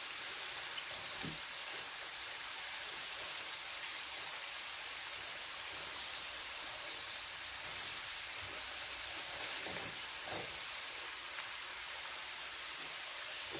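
Food deep-frying in hot oil: a steady, even sizzle.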